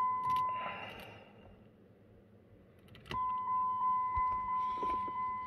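Steady high electronic warning chime from a 2005 Jeep Grand Cherokee. It cuts off about a second in and comes back at about three seconds. Keys rattle and click at the ignition as it stops.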